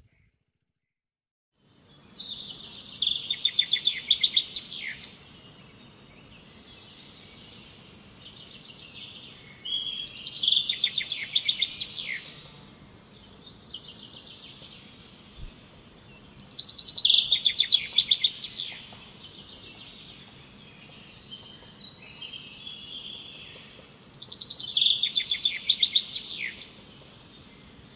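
A songbird singing the same trilled, high-pitched phrase four times, about every seven seconds, over steady outdoor background noise.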